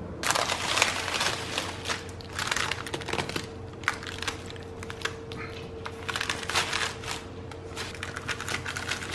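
A metal pizza wheel cutting a freshly baked pizza on parchment paper: repeated crackling, crunching strokes as the blade rolls through the crisp crust and scrapes the paper, over a faint steady hum.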